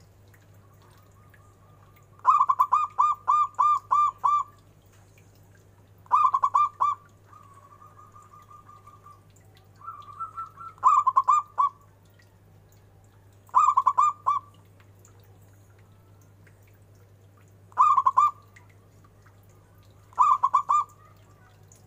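Zebra dove (perkutut) cooing in a deep voice: six phrases of rapid, evenly spaced coos every few seconds. The first is a long run of about seven notes, and the rest are shorter phrases of three or four notes, with a softer rolling trill between some of them. A steady low hum runs underneath.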